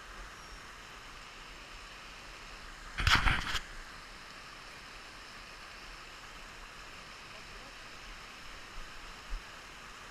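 Several shotgun shots in rapid succession about three seconds in, fired at a high driven partridge, over a steady background hiss.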